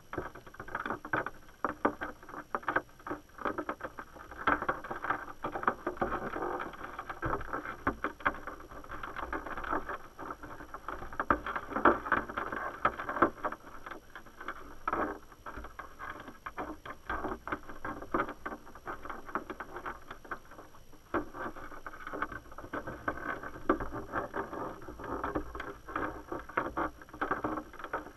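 Underwater noise picked up by a GoPro in a submerged crawdad trap: a dense, irregular crackle of small clicks and knocks that eases off briefly about 21 seconds in.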